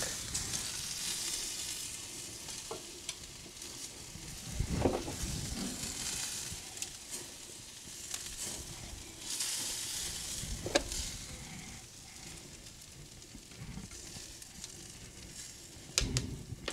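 Marinated chicken wings sizzling on a grill over a fireplace fire: a steady hiss that swells and fades, with a few short sharp knocks.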